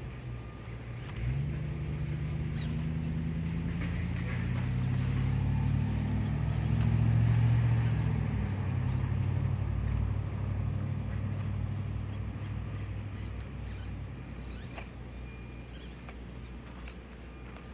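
A low motor hum that starts about a second in, grows to its loudest in the middle, then fades away, with light scattered clicks over it.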